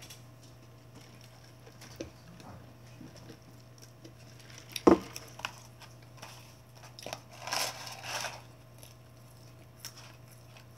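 Someone handling a paper McDonald's fry carton while eating fries: a sharp knock a little before the middle, then a second or so of papery rustling as the carton is tipped up to the mouth, over a steady low hum.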